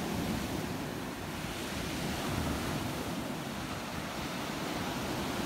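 Steady surf washing onto an ocean beach, with wind on the microphone.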